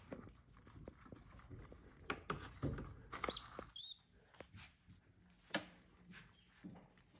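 Scattered light clicks and knocks of feeding work at a snake enclosure, with a brief high squeak a little past three seconds in.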